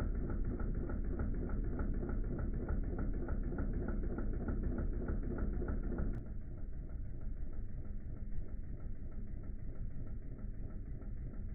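Wilesco D16 model steam engine running, with a rapid, even chuffing beat of about five strokes a second. About halfway through, the beat fades into a steadier mechanical rumble.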